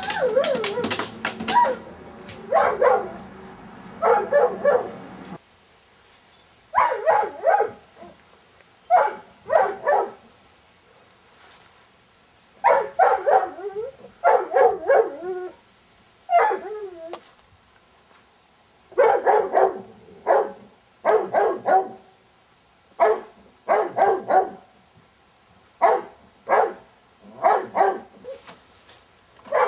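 A large dog barking angrily from inside a closed car, in short bursts of two to four barks every couple of seconds with brief pauses between.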